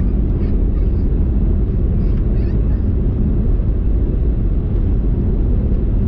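Steady low rumble of tyre and road noise with the engine of a car cruising on a highway, heard from inside the cabin. A few faint short squeaks come about two seconds in.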